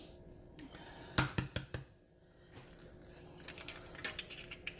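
Light kitchen clicks and clinks. A handful of sharp clicks comes a little over a second in, then a quicker run of small clinks near the end as a glass measuring jug holding cracked eggs and a metal spoon is handled.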